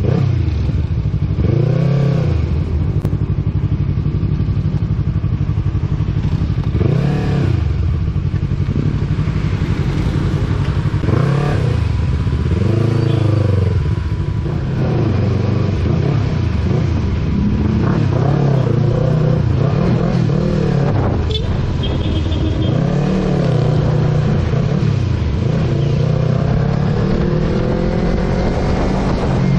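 Sport motorcycle engine pulling through slow traffic, its pitch rising and falling every few seconds as the throttle is opened and closed, over steady road noise.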